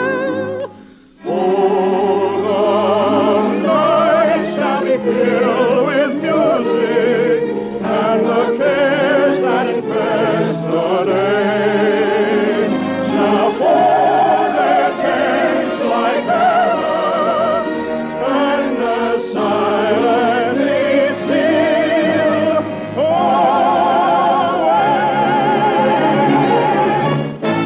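Operatic-style singing with strong vibrato over orchestral accompaniment, in an early-1950s radio broadcast recording with a dulled, muffled top end. The music breaks briefly about a second in, then carries on.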